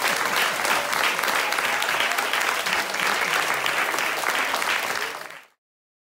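An audience clapping, with a few voices calling out partway through. It cuts off suddenly about five and a half seconds in.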